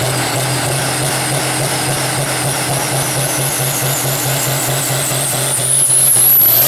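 Pulling tractor's diesel engine running hard as the tractor drives past, a steady throbbing note with a high whistle that rises in pitch. It gets loudest near the end as the tractor comes close by.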